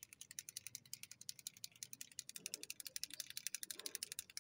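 Touch-up paint pen shaken by hand, its mixing ball clicking inside in a fast, even rattle of about ten clicks a second, stirring the paint before use.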